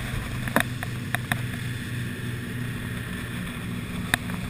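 Motorboat engine running steadily at speed, a low droning hum under rushing water and wind. A few sharp knocks cut in, three near the start and one near the end.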